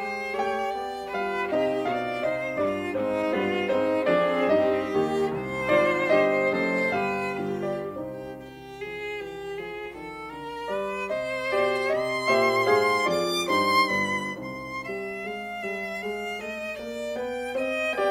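Instrumental background music: a melody with vibrato over chords, dipping quieter for a moment about halfway through.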